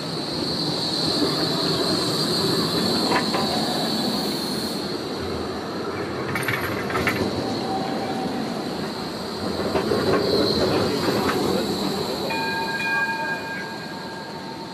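Blackpool Flexity 2 tram running along street track. A high steady squeal sounds for the first few seconds, and a few steady tones sound briefly near the end.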